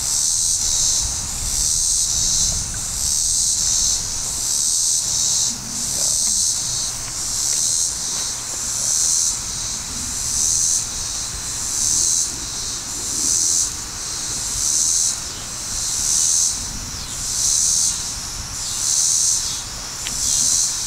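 A loud chorus of insects: a high-pitched buzz that swells and fades in a steady rhythm, about once every second and a half.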